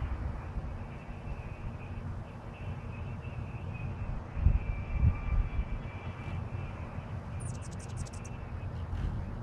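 Steady low rumble with two dull low thumps about halfway through. Near the end comes a quick run of high-pitched hummingbird chips, about eight in under a second.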